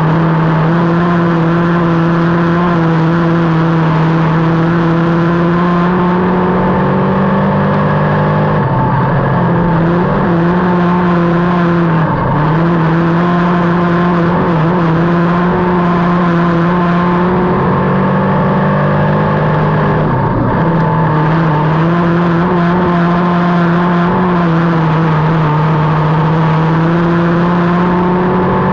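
Winged sprint car engine heard from the cockpit, running hard at high, nearly steady revs around the dirt oval. The pitch drops briefly a few times, about 9, 12 and 20 seconds in, as the throttle is lifted for the turns, then climbs back.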